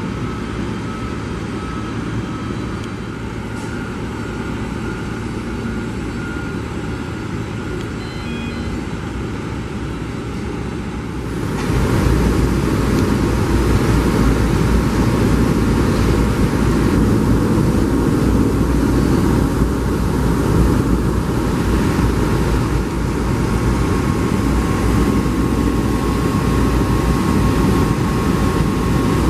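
Steady airport jet-engine noise of aircraft idling and taxiing, stepping up louder about eleven seconds in; a faint steady whine comes in near the end.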